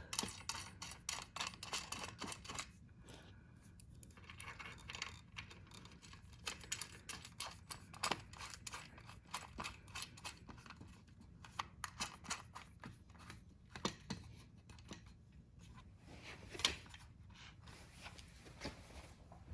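Scattered small clicks and light metallic handling noises, irregular and with no steady rhythm, as bolts are fitted by hand into a scooter seat clamp.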